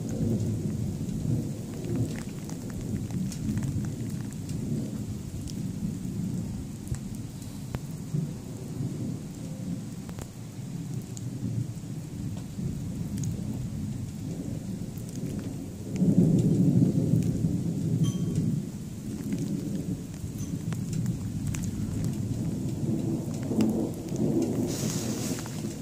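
Thunder rumbling continuously during a thunderstorm, swelling louder about two-thirds of the way through, with rain falling and pattering.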